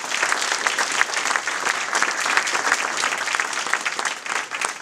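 Audience applauding: a roomful of people clapping, thinning a little near the end.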